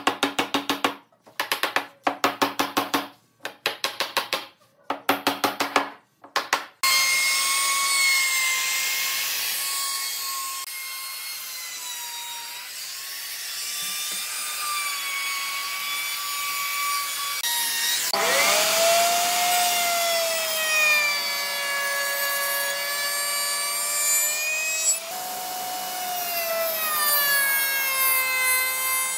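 Woodworking tool at work on wood: about seven seconds of rapid strokes in short bursts, then a power tool's motor running on steadily, its pitch wavering and dropping as it takes load during the cut.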